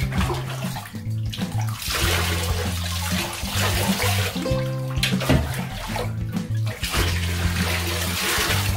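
Water pouring and splashing in a bathtub as a wet cat is rinsed, over background music with a repeating bass line.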